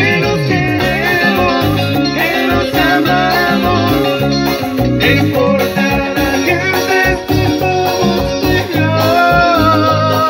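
Live cumbia band music played loud through PA speakers: a guitar melody over a steady pulsing bass beat, with a singer on a microphone.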